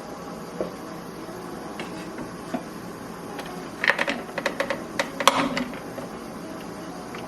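A quick run of clicks and clattering knocks about four seconds in, over a steady low hum.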